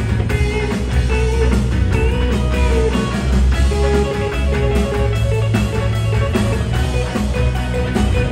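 Live rock band playing an instrumental passage: electric guitar lines over bass and drums, steady and loud throughout.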